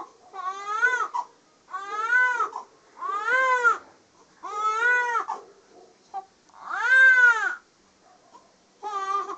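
A baby crying in a string of wails, each under a second long and rising then falling in pitch, coming about every second and a half; the longest and loudest wail is about seven seconds in.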